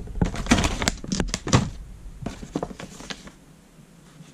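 Plastic parts bags crinkling and rustling, with small clicks, as a hand sorts through a cardboard box of bagged suspension bushes. The sound is busiest in the first couple of seconds, then comes in scattered bits and dies away near the end.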